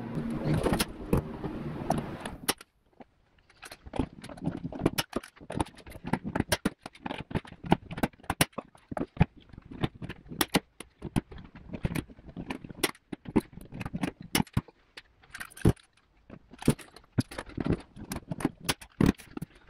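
Hand pop-rivet gun squeezed over and over, giving a run of sharp, irregular metallic clicks and snaps as rivets are set into a car bumper. The clicks start a couple of seconds in.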